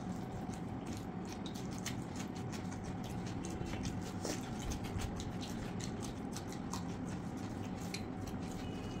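Eating by hand: fingers mixing rice and chicken curry on steel plates and mouths chewing, many small clicks scattered throughout, over a steady low hum.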